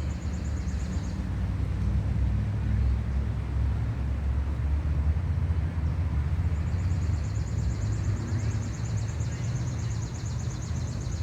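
Outdoor ambience: a steady low rumble with a rapid, high-pitched pulsing trill, typical of an insect. The trill is heard briefly at the start and again from about six seconds in.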